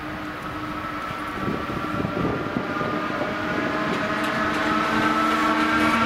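ZSSK class 361 electric locomotive hauling a passenger train as it approaches and passes, its electric whine holding several steady tones over wheel-on-rail rumble and clatter, growing steadily louder.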